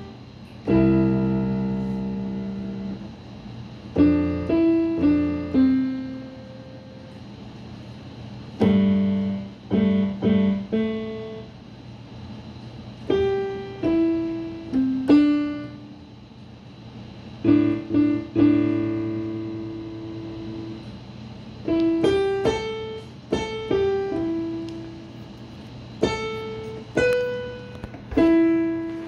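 Roland BK-3 digital keyboard played with a piano sound: a slow, simple melody picked out note by note in short phrases with pauses between them, with a few low chords held under it.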